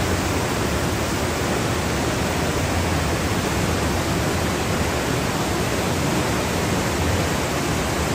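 Smith River at flood stage rushing and churning around a concrete bridge pier: a steady rush of turbulent water.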